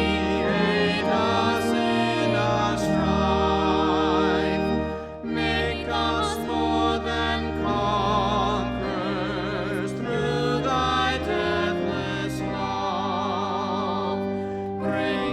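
A hymn sung by a classically trained voice with wide vibrato over held, sustained accompaniment chords. The sound dips briefly about five seconds in, between phrases.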